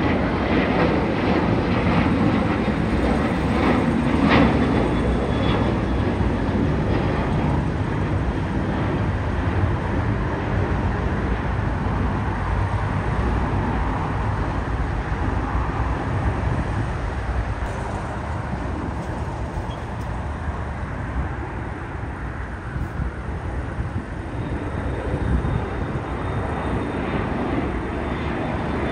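Turbofan engines of an American Airlines Boeing 737 at takeoff thrust during the climb-out, a loud steady jet noise that fades slowly as the plane climbs away. Near the end the noise grows louder again as another jet climbs out.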